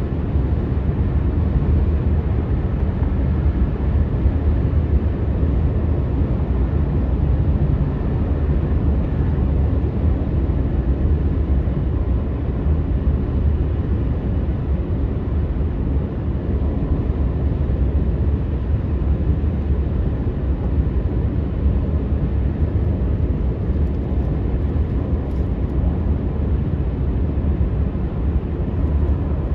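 Steady low rumble of a moving car heard from inside the cabin: tyre and engine noise.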